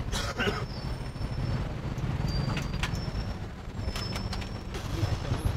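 Scattered light clicks and knocks of a satellite receiver box's case and parts being handled and put back together, over a steady low rumble.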